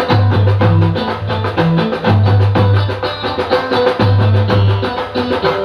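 Live band music through a PA system: drums playing fast, even percussion strokes over a deep bass line in long held notes.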